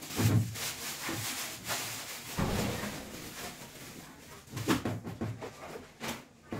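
Hand scooping dry chocolate crumbs from a plastic tub and pressing them onto the frosted side of a cake, the crumbs rustling and scraping with loose bits falling back into the tub. A couple of soft knocks, near the start and about two and a half seconds in.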